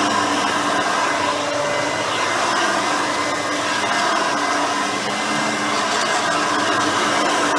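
Hoover Elite 350 upright vacuum cleaner running steadily with its brush roll spinning, vacuuming the floor.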